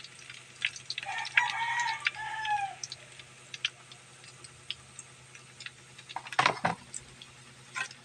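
A rooster crows once, a rising-then-falling call under two seconds long, over scattered sharp clicks of a metal spatula in a frying pan of hot oil. A louder clatter comes about six and a half seconds in.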